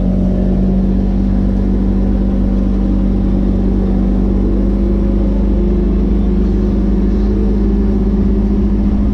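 Vehicle engine running at a steady speed while driving: a constant drone whose pitch creeps slightly upward over the second half.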